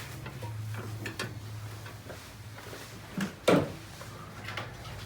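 Scattered light clicks and ticks of intake parts and the mass airflow sensor being handled and unclipped, over a steady low hum, with one louder short knock about three and a half seconds in.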